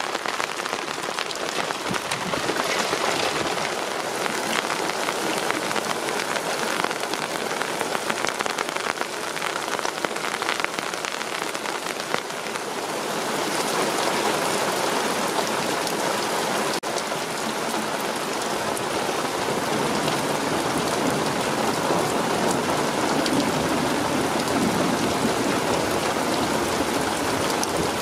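Steady heavy rain from a thunderstorm, falling and pattering on surfaces, growing louder and fuller about halfway through.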